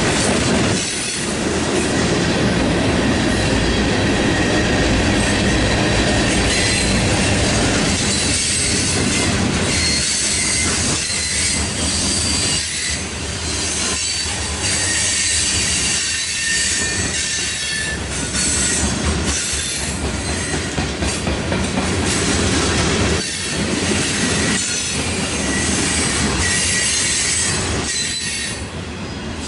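Freight cars (tank cars and covered hoppers) rolling past close by: a continuous rumble of steel wheels on the rails, broken by repeated clacks as the wheel sets cross rail joints.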